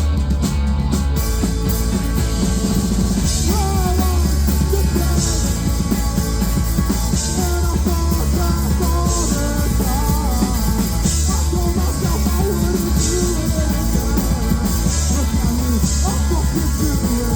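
Live rock band playing a stretch without words: heavy bass, a cymbal hit about every two seconds from about three seconds in, and a wavering melody line over it.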